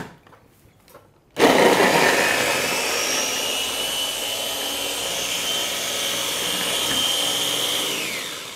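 Russell Hobbs electric mini chopper running, its blades whirring through young ginger and water to make a paste. It starts suddenly about a second and a half in and runs steadily, with a whine that slowly rises. Near the end the whine falls as the motor is released and winds down.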